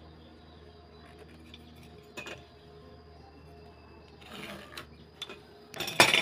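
Pencil scratching a marking line on a wooden board against a steel rule, with small taps of the tools, over a low steady hum; just before the end a steel ruler and try square clatter down onto the wooden bench, the loudest sound.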